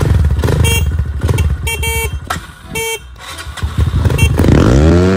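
Dirt bike engine running unevenly, then revving up near the end as the throttle is twisted. The engine runs despite the owner's fear that water got into the muffler.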